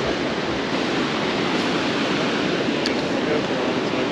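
Steady, even rush of flowing creek water.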